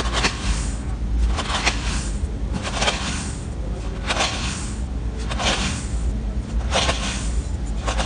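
Knife slicing through a packed block of kinetic space sand, a gritty crunch with each cut. Six cuts in steady rhythm, about one every 1.3 seconds, over a steady low rumble.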